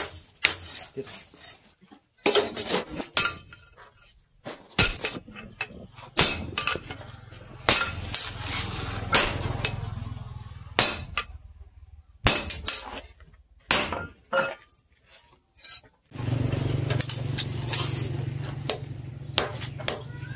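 Hammer blows on a sword blade resting on a steel post anvil: irregular, sharp metallic clinks, some in quick clusters, with pauses between. From about three-quarters of the way in, a steady low hum runs under the strikes.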